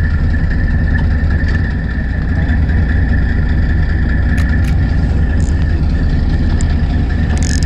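Fishing boat's engine idling: a steady low drone with a constant higher whine above it.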